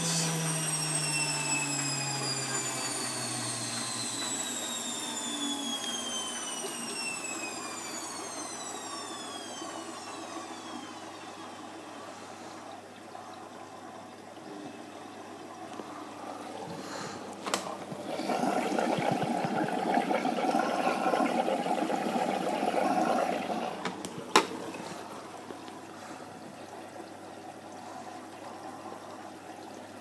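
Bosch WFF2000 washing machine's drum motor coasting down from a spin, its whine falling away over about ten seconds. Later a click, then water rushes in for about five seconds as the machine fills for the final rinse, ending with another click.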